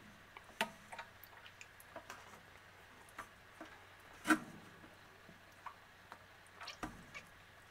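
Irregular light clicks and taps from a shallow plastic tub of hatchling common snapping turtles scrambling and snapping at worms, with one louder knock about four seconds in.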